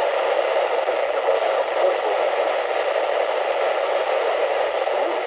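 Steady hiss of static from a NOAA weather radio receiver, with the warning broadcast not coming through.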